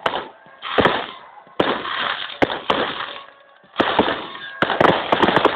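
Fireworks display shells bursting: a sharp bang about every second, each fading out in a rolling echo, then a quick run of bangs near the end.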